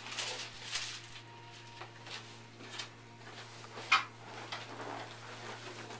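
Rustling and shuffling as a patient turns over to lie face down on a chiropractic treatment table, with a few short knocks and a sharp click about four seconds in, over a steady low hum.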